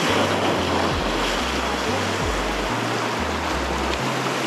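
Surf breaking and washing over shoreline rocks as a steady rush. Under it runs a background music track with deep bass notes stepping every half second or so.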